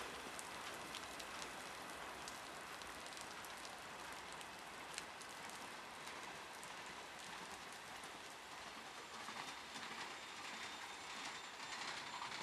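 Heavy rain falling steadily, with scattered sharp drop ticks, while a freight train's cars roll past on the rails.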